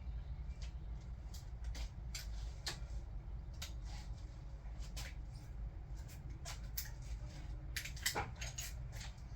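Irregular light metallic clicks and taps of a hand ratchet and socket working the cam cap bolts on a Toyota 2JZ cylinder head, over a steady low hum.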